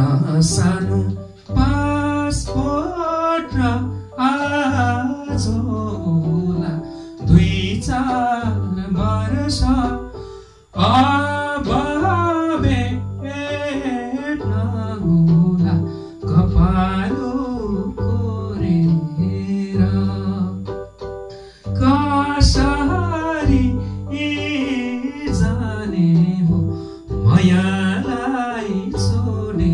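A man singing a Nepali folk song live in phrases, accompanied by his own electronic keyboard playing chords and a bass line.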